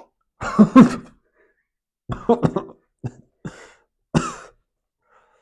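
A man coughing in about five short fits, the first the loudest, clearing his throat between them. He is gagging with heartburn and nausea.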